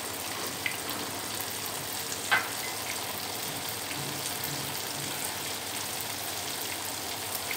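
Tofu cubes frying in hot oil in a pan: a steady sizzle, with a single light click about two seconds in.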